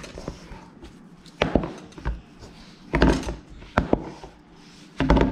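A hand kneading a lump of roti dough in a stainless steel bowl: a run of irregular dull thumps as the dough is pressed and pushed against the bowl, with soft rubbing in between.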